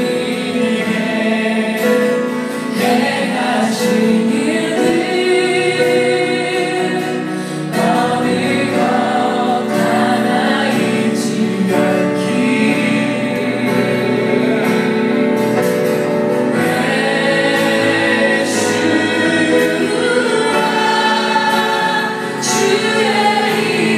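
A man singing a Korean-language Christian worship song while strumming an acoustic guitar, a slow sung melody over steady chords.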